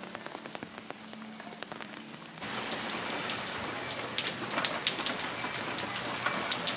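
Rain falling on a wet walkway, an even hiss with many small drops ticking; it turns suddenly louder about two and a half seconds in.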